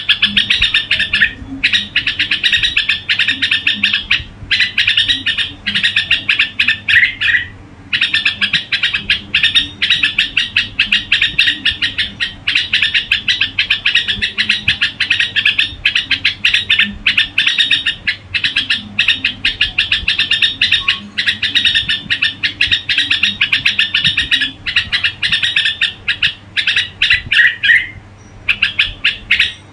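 Red-whiskered bulbul singing: long runs of rapid, bright chirping notes, broken by a few short pauses.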